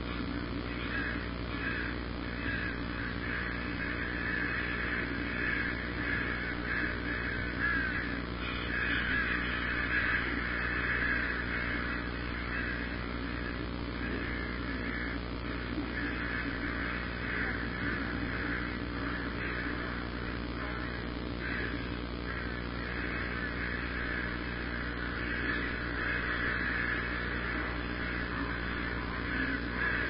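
Many birds calling at once, short calls overlapping densely throughout, over a steady low hum.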